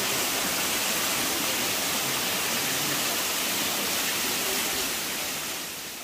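Steady rush of falling water from a mountain waterfall, fading out near the end.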